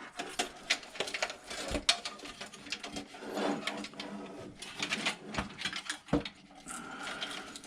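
Power-supply cables being pulled out and sorted by hand: irregular rustling, with plastic connectors clicking and knocking against the case.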